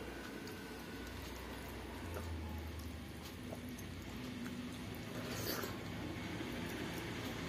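Close-up eating sounds: fingers squishing and mixing cooked rice with curry and dal on a steel plate, and wet chewing and mouth noises as handfuls are eaten.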